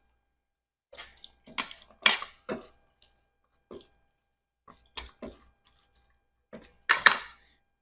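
Scattered light clinks, knocks and brief scrapes of kitchen utensils and dishes, with the loudest clatter about seven seconds in.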